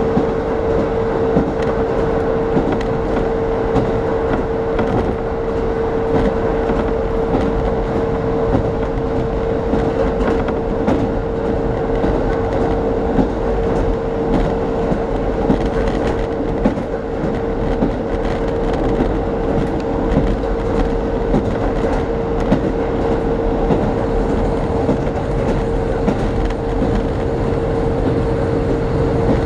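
A diesel local train running at speed, heard from inside the passenger car: a steady rumble of wheels on rails with a constant whine.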